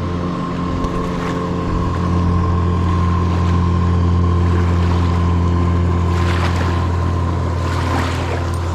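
A motorboat engine running steadily at one constant speed, a loud low hum, with a few short rattles in the last few seconds.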